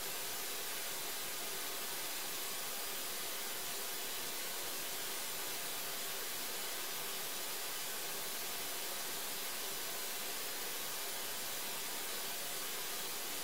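Steady, even hiss with nothing else in it.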